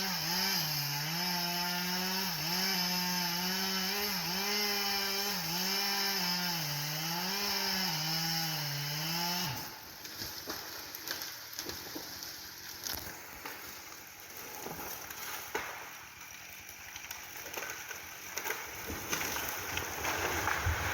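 Chainsaw cutting into a tree trunk, the engine pitch sagging under load and picking up again roughly once a second, then cutting off about nine seconds in. After that come scattered cracks and rustling, rising to a louder rustle near the end.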